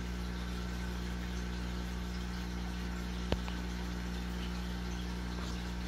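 Aquarium air pump humming steadily while an air stone bubbles in the tank, with one small click about three seconds in.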